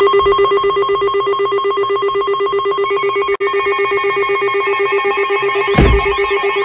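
NOAA weather alert radio sounding its tornado warning alarm: a loud electronic tone pulsing rapidly, with a second, higher tone joining about halfway through. Near the end there is a single thump, and then a warbling, siren-like tone begins.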